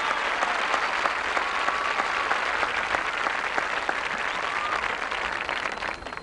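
Crowd applauding, with the applause thinning out near the end.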